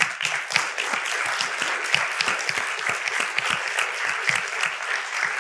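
Audience applause: many people clapping together, a dense patter that starts suddenly and keeps up evenly.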